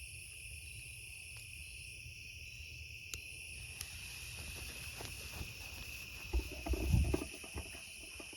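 Crickets chirring steadily in an evening insect chorus, with a few low thumps about six to seven seconds in.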